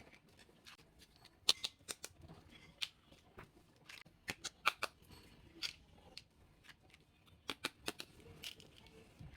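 Small plastic toy pieces from a doll doctor play set being handled, with irregular sharp clicks and taps, some in quick clusters, over faint rustling of packaging.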